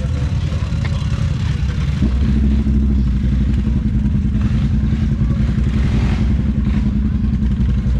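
ATV engine running under throttle, picking up revs about two seconds in and then holding a steady pitch.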